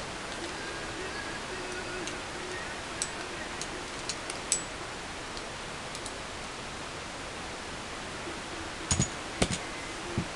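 Steel parts of an M1911A1 pistol clicking as it is stripped by hand, over a steady hiss: a few light clicks in the first half, then a handful of louder clicks near the end.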